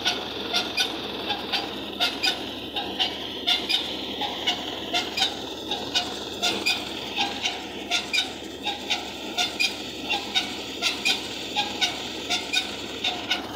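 Tractor-driven thresher, powered by a 50 HP tractor, running steadily under load as straw is fed in, with a quick, uneven stream of sharp clacks, about three a second, over its steady noise.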